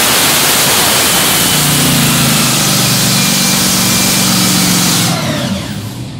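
Top Fuel dragster's supercharged nitromethane V8 running very loud during a pit warm-up. About five seconds in it is shut off and winds down.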